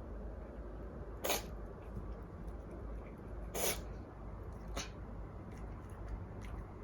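Scottish Fold kitten sneezing three times in short, sharp sneezes, the sign of its cat flu.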